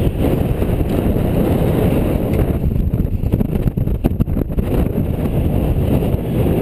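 Wind rushing over the microphone of a camera riding on a racing bicycle at speed: a steady low roar, with rougher buffeting for a moment about three to four and a half seconds in.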